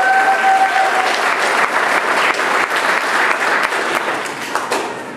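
Audience applauding in a large hall, fading toward the end. At the start, one long high call rings out over the clapping.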